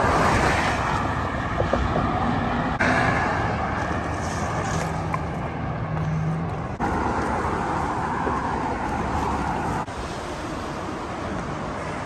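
Steady rush of freeway traffic, with tyres and engines of passing cars and trucks and a low engine hum at times. The level jumps abruptly a few times.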